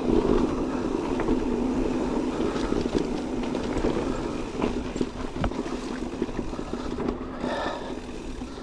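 Electric mountain bike rolling down a rough, rocky trail: a steady rumble of tyres and frame, with several sharp knocks as it goes over rocks.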